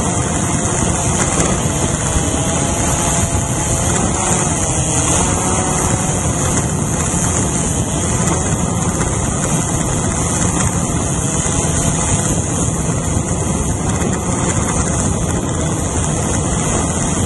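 Small quadcopter drone's electric motors and propellers buzzing steadily, picked up close by the drone's own onboard camera, with faint tones in the buzz wavering up and down as it manoeuvres.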